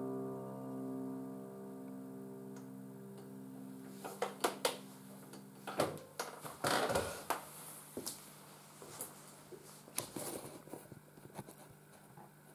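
A final held chord on a Roland electronic keyboard sustaining and slowly fading out. About four seconds in, irregular clicks and knocks of handling begin and run on as the chord dies away, the loudest a little past the middle.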